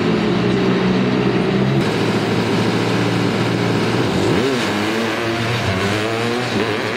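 Small engine of a scaled-down mini car running and revving. The revs dip and climb about four seconds in, then rise as it accelerates away. The sound changes abruptly about two seconds in.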